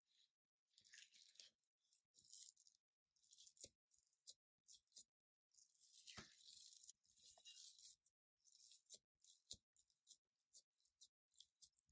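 Faint, irregular gritty rustling and scraping from ingredients or utensils being handled, with a few light knocks, the sharpest about six seconds in.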